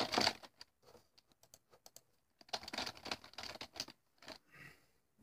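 Quick runs of typing clicks: a dense run at the start, a few scattered taps, then another dense run from about two and a half to four seconds in.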